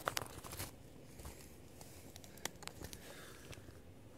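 Light clicks and knocks of a ruler being handled and set into a hole in lake ice: several in quick succession near the start and one sharper click about two and a half seconds in.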